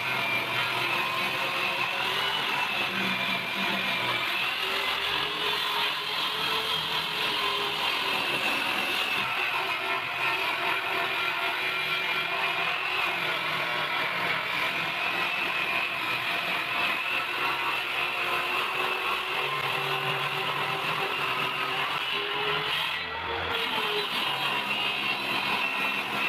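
An electric power tool's motor running steadily, its whine wavering slightly in pitch as it works, with a brief drop about 23 seconds in.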